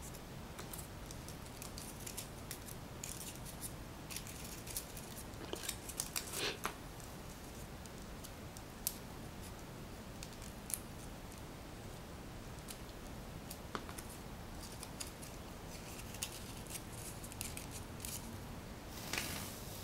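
Faint scattered rustling and small clicks of paper being handled as a rolled paper rose is pressed and glued onto a paper leaf base, with louder crinkles about six seconds in and again near the end.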